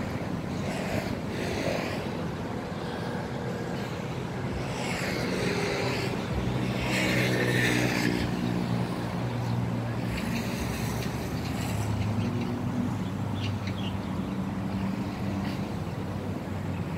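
Motor vehicle engines running, with a steady low hum and several vehicles passing by. About five seconds in, one engine's pitch falls away over a few seconds.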